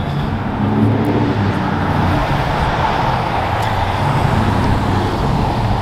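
Steady city-street traffic noise: the rush of cars driving by on the road.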